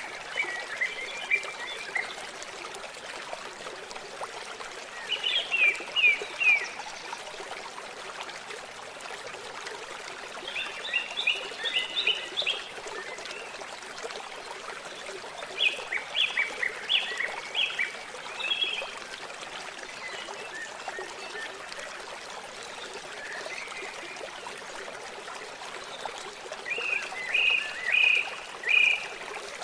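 Steady running water, with a songbird singing short bursts of quick chirping notes about five times, the bird phrases standing out above the water.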